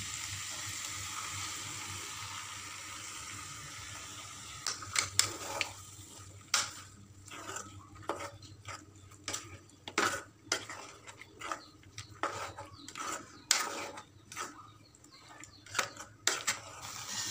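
Frying in a metal kadai with a steady sizzle, then a metal spoon stirring masala paste into the mutton, with a string of clinks and scrapes against the pan.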